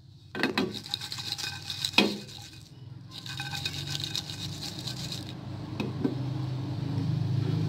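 A utensil clinking and scraping against a nonstick frying pan as garlic cloves are dry-roasted without oil. Sharp knocks come about half a second and two seconds in, over a steady low hum.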